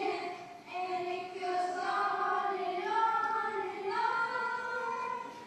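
Children singing a melody in long held notes, the pitch stepping upward about four seconds in.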